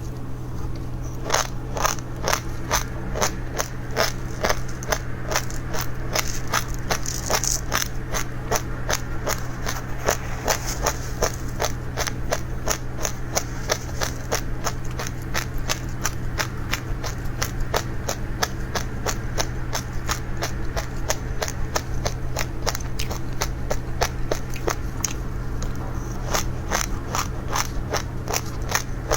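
Seeds being eaten: rapid, crisp crunching clicks, several a second and fairly regular, over a steady low hum.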